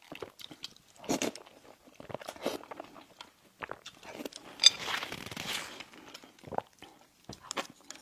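Close-miked eating: crisp bites and chewing of crunchy pastry, with sharp crackling strokes scattered throughout and a louder crunchy stretch about halfway through.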